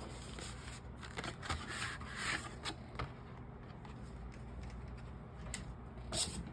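Plastic shrink-wrap being torn and peeled off album packaging, rustling and crinkling, with a few sharp clicks and taps as the packages are handled.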